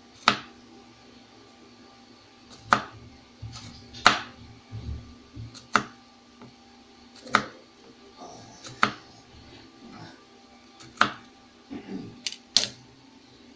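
Kitchen knife slicing firm kamias (bilimbi) fruit on a plastic cutting board: about ten sharp knocks of the blade hitting the board, at uneven gaps of one to two seconds.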